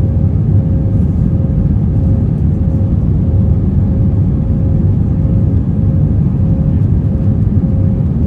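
Airbus A320 cabin noise in flight: a steady, loud low rumble of engines and airflow heard from inside the passenger cabin, with a faint constant hum over it.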